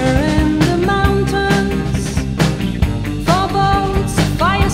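Background music with a regular drum beat and melody lines that slide up in pitch.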